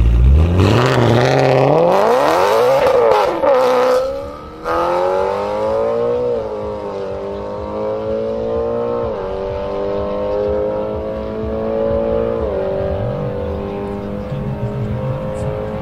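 G-Power-tuned BMW M3 GTS V8 launching from a standstill and accelerating at full throttle. Engine pitch climbs, then drops at each of four upshifts about three seconds apart.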